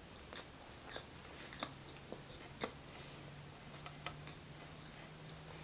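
Close-miked chewing of butter chicken and rice with the mouth closed: soft wet mouth clicks and smacks at irregular intervals, about ten in all, over a faint low hum.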